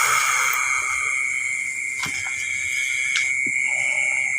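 A steady, high-pitched chorus of night insects, with a few faint clicks over it.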